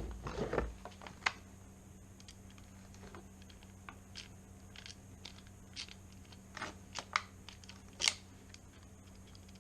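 Small tools and lock parts being handled on a work surface: a thump and rustle at the start, then scattered light clicks and taps.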